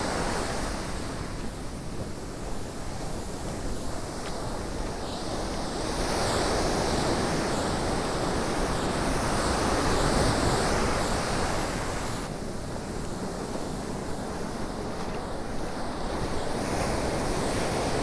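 Rough ocean surf breaking on the shore: a steady rush of waves, swelling louder in the middle.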